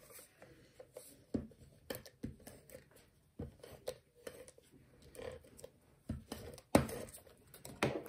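A sheet of card stock handled on a craft mat: scattered light rustles, slides and taps of paper, with two louder rustles near the end.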